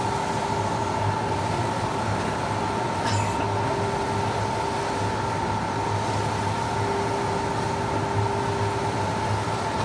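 ACME wide-format inkjet printer with Konica 512i printheads running a print job: a steady mechanical hum from its motors with a steady high whine over it.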